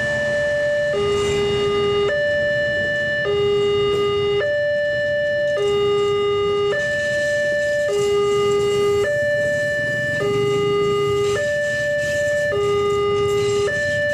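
Railway level-crossing warning alarm sounding a two-tone electronic chime, a higher and a lower note alternating, each held a little over a second, over the low rumble of a passenger train running past.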